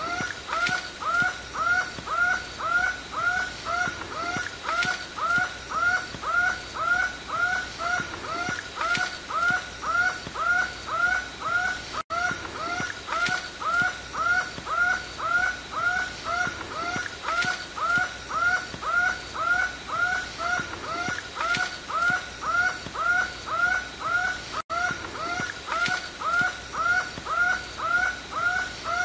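A steady, rhythmic animal call: a short arched note repeated about twice a second with a high shrill pulse in time with it, breaking off for an instant twice.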